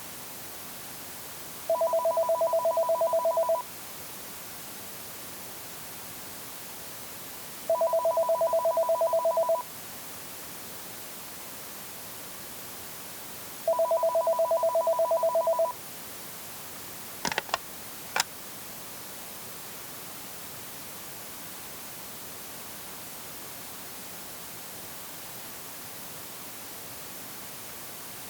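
A telephone ringing three times: an electronic two-tone warbling ring, about two seconds on and four seconds off, over a steady hiss. A few sharp clicks follow the third ring.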